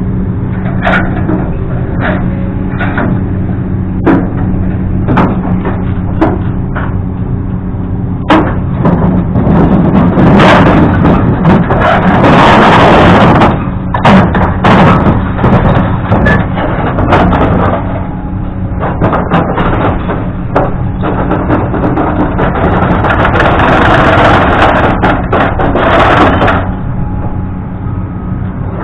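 An engine running steadily, with repeated sharp metal knocks and clanks and two longer stretches of louder rushing noise, one near the middle and one later on.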